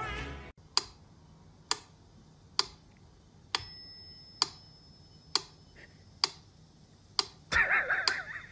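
Regular ticking, a little under one second between ticks, a few of them with a brief ringing tone. Near the end comes a short wavering, pitched sound.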